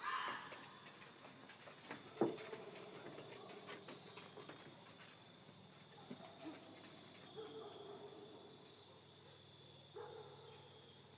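Steady high-pitched insect chirring in the night, with a sharp knock about two seconds in and a few short low-pitched calls later on.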